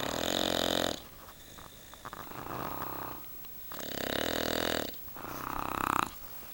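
Heavy snoring, four snores in a row: a loud one at the start, a softer one, another loud one about four seconds in, and one that builds up and stops just past six seconds.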